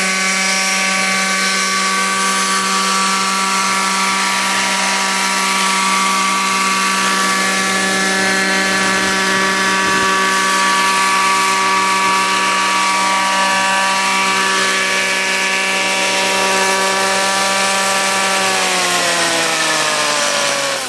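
Zenoah 23cc two-stroke petrol engine of an RC helicopter running steadily at one speed. Near the end its pitch falls as the engine slows down.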